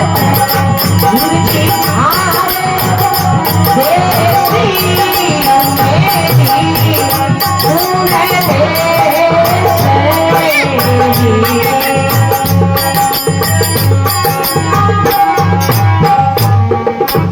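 Rajasthani devotional bhajan music: a wavering melody over a steady held drone, with regular hand-drum beats and fast, even strokes of small metal or rattling percussion.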